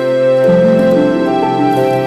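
Soft, slow background music with sustained notes.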